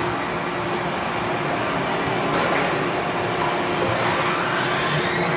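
Doosan DNM5700S vertical machining center running a program after cycle start: a steady rushing machine noise, and about four and a half seconds in a rising whine as the spindle speeds up.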